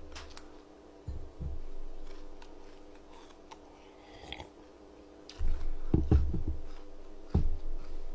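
A person drinking from a glass and handling things at a table: a few dull low thumps, the loudest cluster about two-thirds of the way through, over a faint steady hum.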